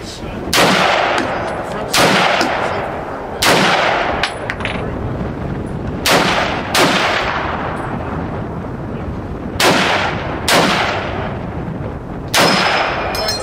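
Semi-automatic rifles fired one shot at a time: eight sharp shots at uneven intervals, each trailing off in a long echo.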